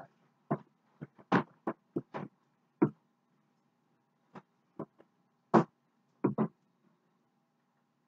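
Irregular short clicks and knocks, about a dozen, from hands working at a cardboard box and its packaging to get it open by hand. The loudest come about a second and a half in and again near five and a half seconds.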